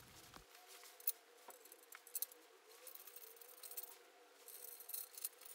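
Faint, scattered light clicks and rustles of hands handling and fitting parts on a power hacksaw's painted metal base frame.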